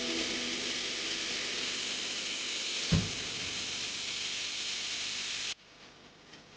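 Steady hiss with a single thump about three seconds in; the hiss cuts off abruptly near the end.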